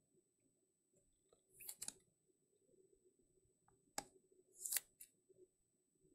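Quiet handling of trading cards in plastic holders: a short scrape, a sharp click about four seconds in, then another short scrape, as cards are slid into rigid plastic top loaders and set down.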